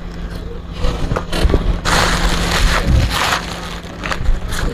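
Rustling, scraping and clattering of small parts being rummaged through by hand, with scattered clicks and knocks and a dense stretch of rustling from about two seconds in.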